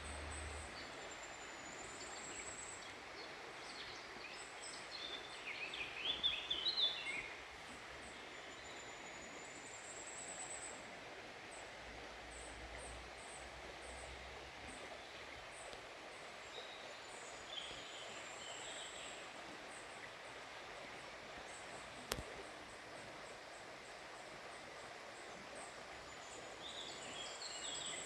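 Small birds singing: a thin, high whistled phrase repeats about every eight seconds, with a louder burst of quick chattering notes about six seconds in, over a steady background hiss. A single sharp click comes near the end.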